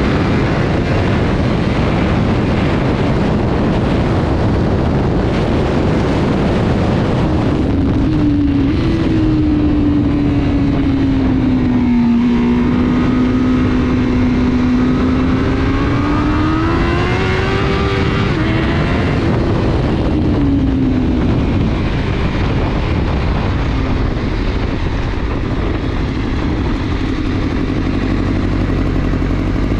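Motorcycle engine running loudly and steadily, with its pitch dipping, rising and falling again in the middle as the revs change. The title calls this an exhaust leak.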